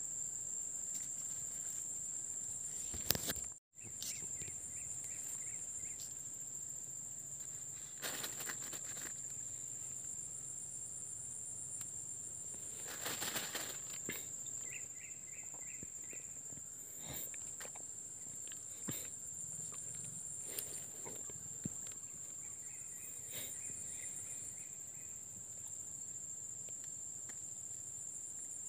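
Insects trilling steadily at a high pitch, with a second, pulsed chirping joining in briefly three times. A few short rustles and a sharp click a few seconds in, followed by a momentary dropout of the sound.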